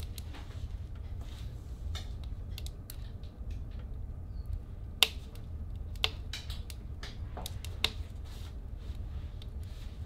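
Irregular sharp clicks and ticks, scattered and uneven, over a steady low rumble; the loudest clicks come about halfway through and again near the end.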